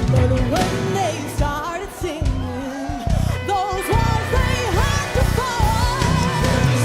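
Live worship music: a band playing while a singer sings wavering, sliding vocal runs over repeated drum hits.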